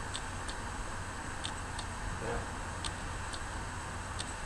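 Faint, even ticking in pairs, one pair about every second and a half, over a steady low hum and a faint high-pitched whine.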